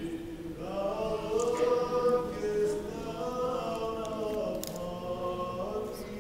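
Unaccompanied choir singing an Eastern Orthodox liturgical chant, several voices holding and moving between sustained notes.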